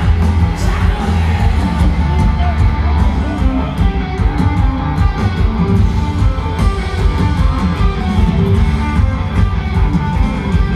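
Live rock band playing loud and steady: strummed electric guitars over bass and drums, heard from the stands of a stadium.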